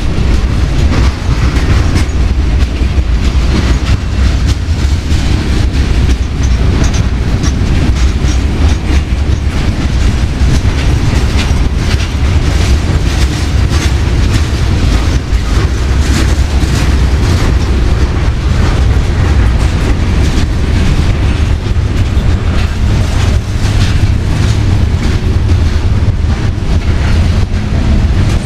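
Freight train hopper cars rolling past close by: a loud, steady low rumble with the wheels clicking and clacking on the rails.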